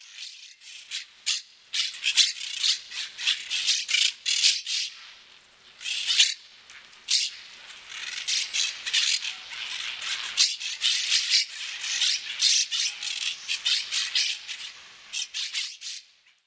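A shaker-like rattle, shaken in quick, irregular strokes that come and go for about sixteen seconds.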